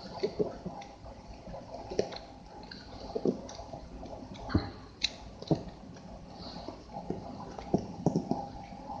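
Pages of a thick softcover manual being flipped one after another: irregular paper flaps and sharp page snaps.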